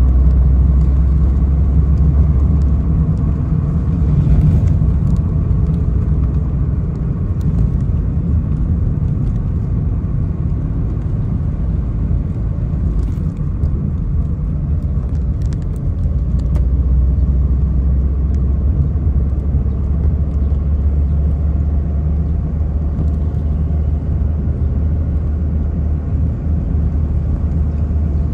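Steady low mechanical rumble with a deep drone, like a vehicle engine running. The drone eases off a few seconds in and grows stronger again about halfway through.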